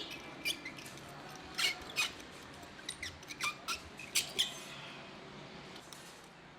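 A series of short, sharp squeaks and clicks, about eight of them bunched in the first four and a half seconds, from hand work on the tire, over a low steady background.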